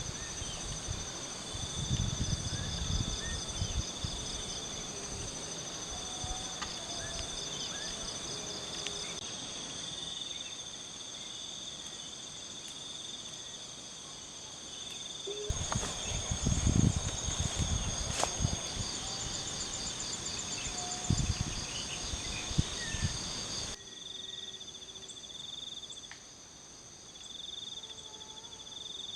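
Crickets and other night insects chirring in several steady high-pitched layers, some in rapid pulsing trains. Low rumbling bumps come and go a few times.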